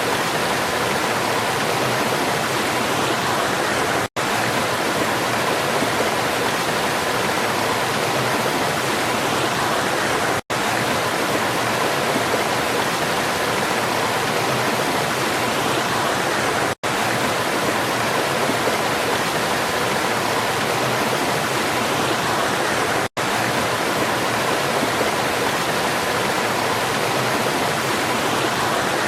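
Waterfall: a steady, dense rush of falling water, broken by very short silent gaps about every six seconds.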